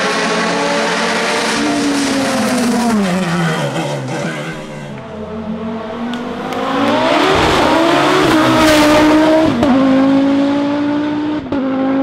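Racing car engines at full load on a hill-climb course. First a sports prototype's engine note falls steadily as the car slows into a hairpin. Then a rally car's engine climbs in pitch as it accelerates hard, with quick gearshifts about ten seconds in and again near the end.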